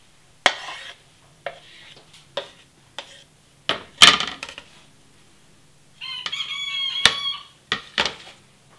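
A knife and wooden cutting board knocking and clinking against a stainless-steel bowl as avocado pieces are scraped in, with about nine separate knocks, the loudest about four seconds in. About six seconds in, a wavering high-pitched call lasts just over a second.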